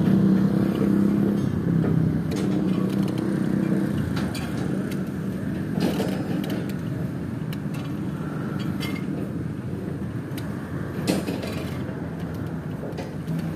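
An engine running steadily, its hum strongest over the first few seconds, with scattered short clicks and knocks, the loudest about eleven seconds in.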